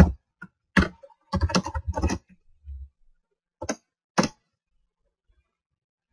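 Typing on a computer keyboard: a quick run of keystrokes in the first couple of seconds, then two single keystrokes about four seconds in.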